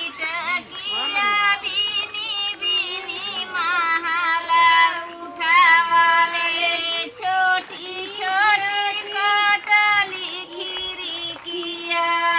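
Women singing a kajri folk song while transplanting rice, the melody held on long notes with wavering ornaments.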